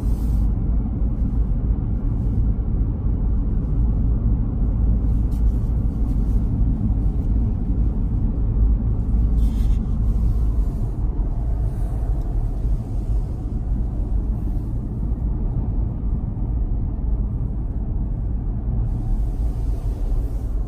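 Steady low rumble of road and engine noise inside the cabin of a Lexus cruising at highway speed.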